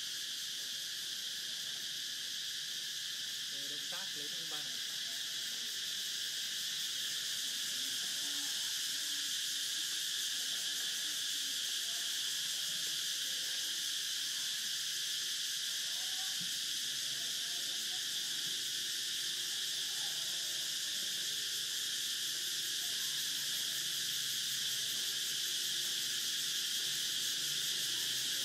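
A steady high-pitched hiss, unchanging throughout, with faint distant voices now and then.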